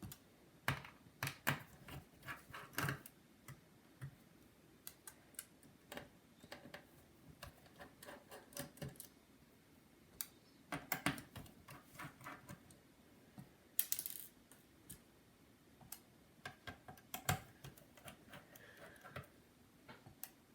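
Small irregular clicks and taps of a precision screwdriver working the logic board screws of a unibody MacBook, coming in short clusters with pauses between.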